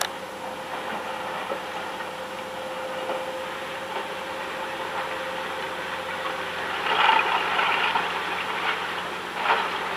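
Old Volvo car's engine idling steadily, with a louder, rougher stretch about seven seconds in and a short burst near the end.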